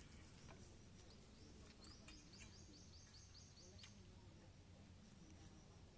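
Near silence: a faint, steady high insect drone, with a quick run of about ten short high chirps, some five a second, starting about two seconds in.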